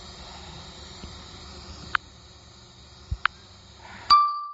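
Steady hiss with a few sharp clicks, then a short, loud electronic beep near the end, after which the sound cuts off abruptly.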